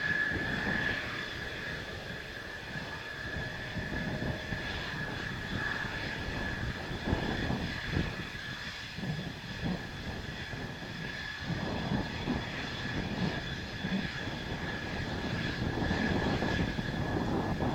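Jet engine of a Mitsubishi F-2 fighter (General Electric F110 turbofan) running at low power: a steady high whine over a rumble. Strong wind buffets the microphone in gusts.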